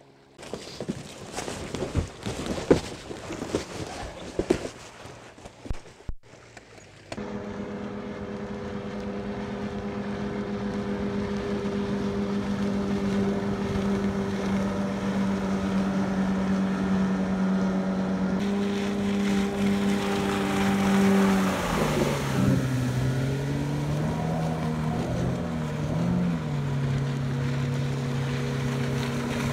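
Irregular wind noise for the first six seconds, then an outboard motor running steadily at speed on a boat. About two-thirds of the way in, its pitch dips and wavers for a few seconds before settling again.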